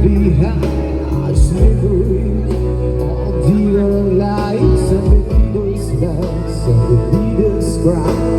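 Live band playing a song over a PA system: a steady bass line with kick drum thumps, and a melody line weaving on top.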